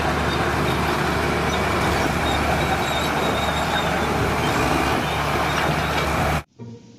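Bulldozer engine running steadily, a dense mechanical rumble added as the toy's sound effect; it cuts off abruptly near the end.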